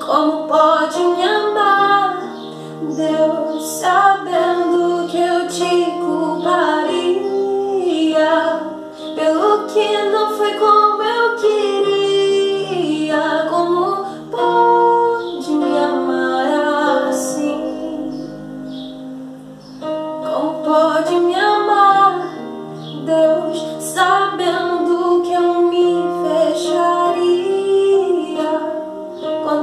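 A woman singing a Portuguese worship song with instrumental backing.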